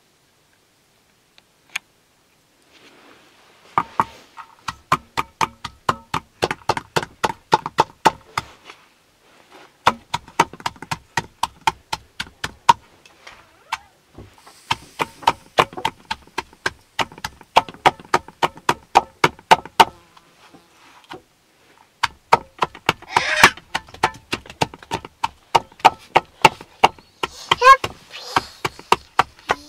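Fast, steady chopping: a blade strikes down into a metal pan about four or five times a second, in runs of several seconds with short pauses. Each hit makes the pan ring.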